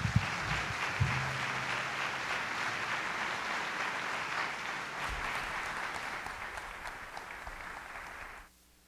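Audience applauding, with a couple of knocks in the first second; the applause thins slightly and then cuts off suddenly near the end.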